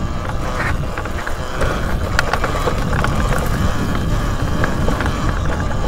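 Talaria Sting R MX4 electric dirt bike being ridden on a dirt trail: steady wind rumble on the microphone, with rattling from the bike and scattered sharp ticks.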